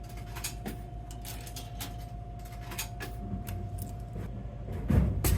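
Coca-Cola vending machine humming steadily, with scattered small metallic clicks, then a loud clunk and rattle about five seconds in.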